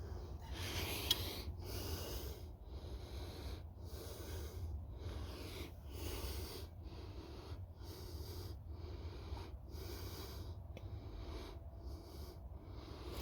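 Hand pump of a Coleman white gas lantern being worked to pressurise the fuel tank, the air wheezing through the pump in a steady rhythm of about two strokes a second.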